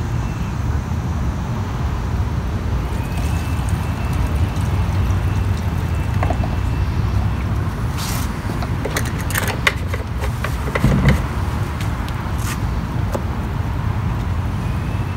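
Steady low outdoor rumble. About eight to eleven seconds in comes a cluster of sharp clicks and knocks as the plastic fuel cap is screwed back onto the leaf blower's tank.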